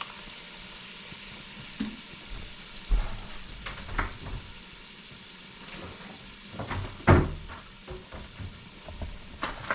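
Sofrito frying in a hot pot with a steady sizzle, broken by a few sharp clicks and knocks, the loudest about seven seconds in.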